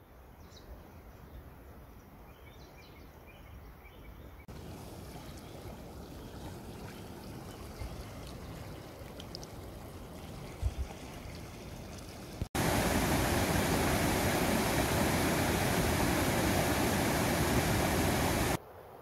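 Rushing mountain stream tumbling over boulders, a loud steady rush that comes in abruptly about two-thirds of the way through and stops just before the end. Before it, quieter running water and outdoor ambience with a few faint high chirps.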